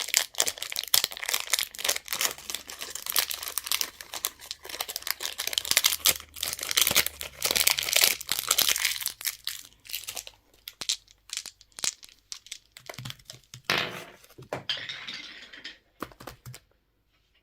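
Candy wrappers crinkling and tearing as they are opened by hand: a dense, fast crackle for about the first ten seconds, then sparser crinkles that stop about sixteen seconds in.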